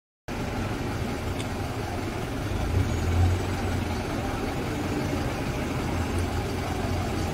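Steady low engine hum and traffic noise heard from inside a vehicle in slow, heavy traffic.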